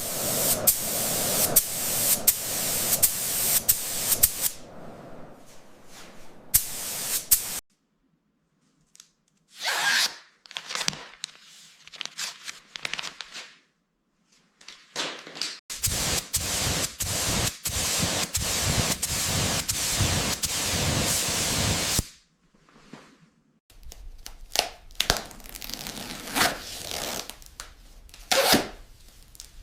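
Workshop bodywork noises in separate short takes, cut apart by sudden silences: steady hissing like spraying, and irregular scraping and rubbing with scattered clicks.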